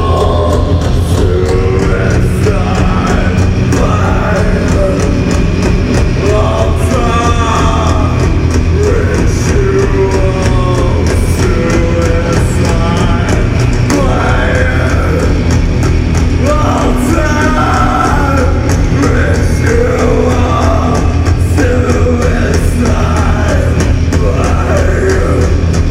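Heavy metal band playing live: loud distorted guitars over a thick, unbroken low end, with a singer's voice on top.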